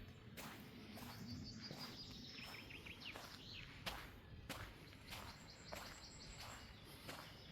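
Footsteps on the forest floor, about two a second, with songbirds calling: a high note, then a short run of falling chirps, and another high whistle near the end.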